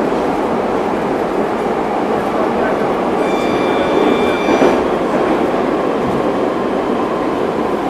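Metrowagonmash 81-740.4/741.4 'Rusich' metro train running at speed, heard from inside the car as a steady, loud rumble of wheels on rail. About three seconds in, a thin high ringing tone joins for about a second and a half.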